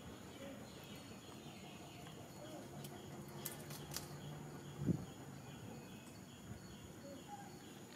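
Outdoor ambience: a faint, evenly repeating chirp about two or three times a second over a steady high whine. A few soft clicks come near the middle, and a single short thump follows about five seconds in.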